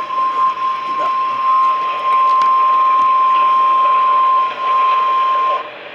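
NOAA Weather Radio warning alarm tone, a single steady 1050 Hz beep held over radio hiss, the signal that a warning message is about to be broadcast. It cuts off suddenly about half a second before the end.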